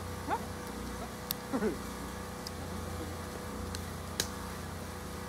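Portable generator running with a steady, noisy low drone, with a few faint sharp clicks over it.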